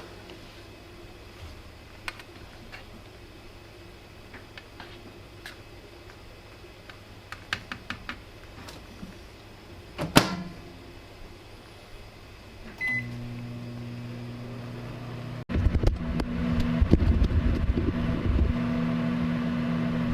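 Microwave oven standing open and silent while scattered clicks and knocks sound, with one loud click about ten seconds in as the door is shut. About thirteen seconds in it gives a single short beep and starts running again with a steady hum. From about fifteen seconds a louder low rumbling joins the hum.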